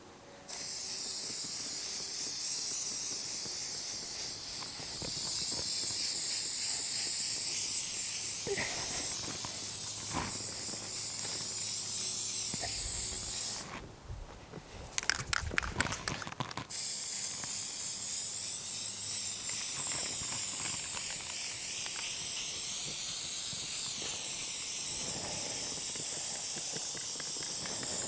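Aerosol spray can of Plasti Dip hissing in long, steady sprays while a light first coat is laid on. The spraying stops for about three seconds partway through, with a few short knocks in the gap.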